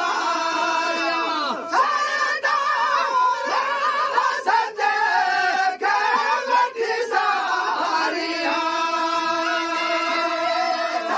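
Several men singing a Sindhi molood, a devotional praise song, together without instruments. They hold long notes in unison, with short breaks between phrases.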